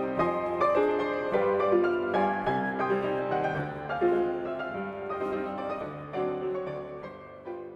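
Piano music: struck notes and sustained chords under a melody, fading out near the end.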